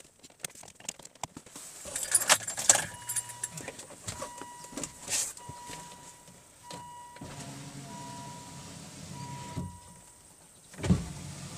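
Clatter of the loose plastic door trim panel being handled, then the Volvo S80 driver's-door power-window motor running and moving the glass, with a knock near the end, as the regulator is tried out after its guide piece was replaced and greased. A repeated electronic beep sounds through the middle.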